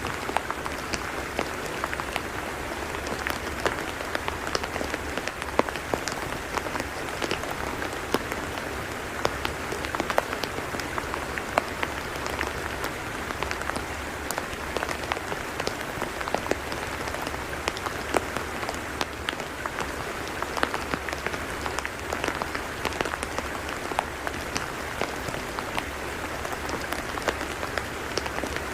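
Rain falling steadily on a tidal mudflat: a continuous patter and hiss dotted with many small, sharp drop ticks.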